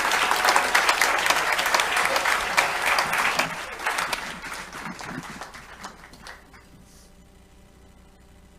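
Congregation applauding, the clapping fading away and dying out about six seconds in.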